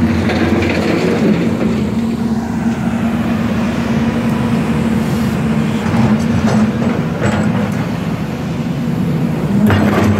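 Diesel engine of a hydraulic excavator running steadily under load, with rock clattering and scraping a few times, most strongly near the end.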